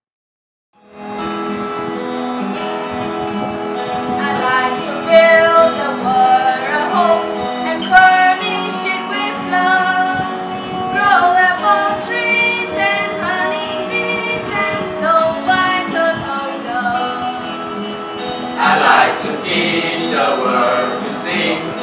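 A mixed choir of teenage boys and girls singing. The singing starts about a second in on a held chord, then moving melody lines come in over it, and the voices grow fuller near the end.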